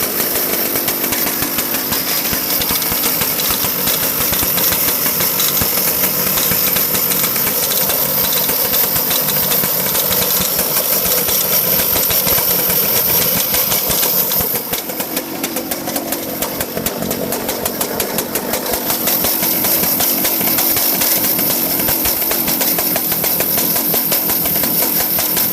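Vortex Mini Rok 60cc two-stroke kart engine running with a fast, buzzing exhaust note, dropping in level for a few seconds about midway before picking back up.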